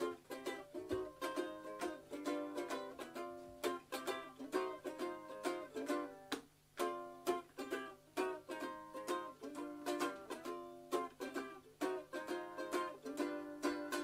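Ukulele strummed alone, playing a run of chords in a brisk, steady rhythm.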